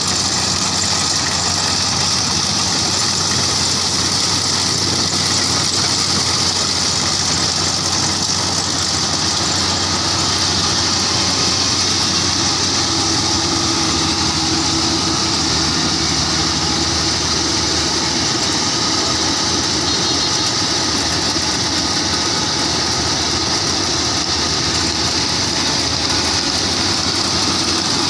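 Kubota combine harvester's diesel engine running steadily under load while it cuts and threshes rice, with a steady high hiss over the engine hum.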